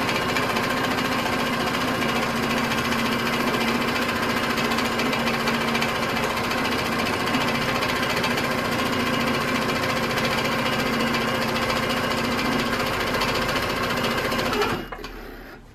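Baby Lock Tiara sit-down quilting machine running steadily in free-motion stitching, the needle going in a rapid, even rhythm. It stops near the end.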